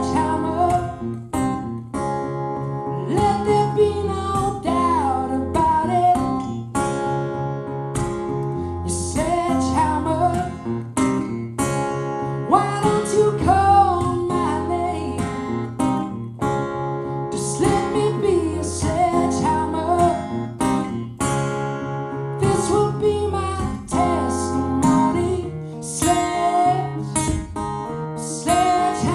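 Live music: an acoustic guitar strummed steadily, with a gliding melody line over it.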